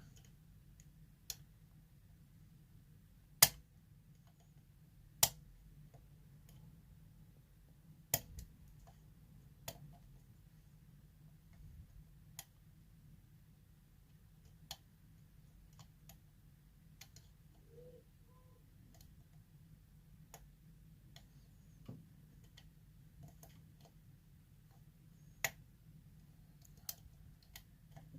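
Single-pin picking of a Tesa TE5 euro cylinder lock with a metal hook pick and tension bar: scattered, irregular sharp clicks as the pick works the pins and they set or drop, the loudest about three and a half seconds in.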